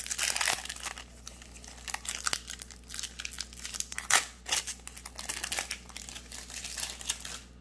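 Foil trading-card booster pack being torn open and crinkled by hand. The crackling is irregular, thickest in the first second, with one sharp crackle about four seconds in.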